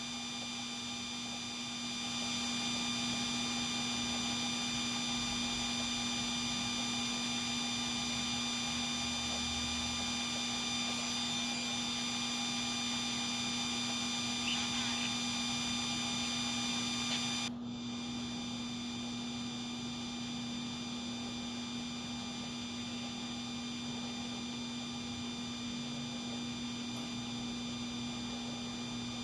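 A steady electronic hum made of several held tones, broken off briefly about two-thirds of the way through and a little quieter afterwards.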